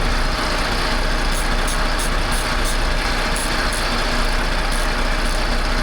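Semi-truck diesel engine idling steadily, with a run of light, high clicks in the middle as a loose battery terminal nut is tightened.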